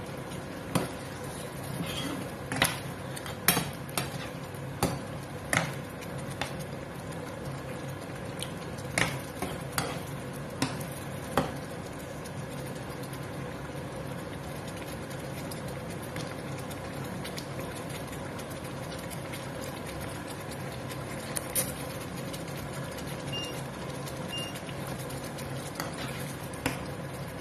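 Metal spoon stirring beef curry in a nonstick frying pan, with a run of sharp clinks of the spoon against the pan through the first dozen seconds and a few more later, over a steady background hum.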